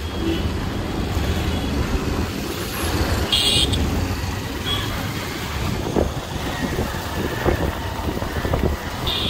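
City street traffic heard from a moving two-wheeler: a steady low rumble of engines and road noise. A vehicle horn honks briefly about three seconds in, and another horn starts near the end.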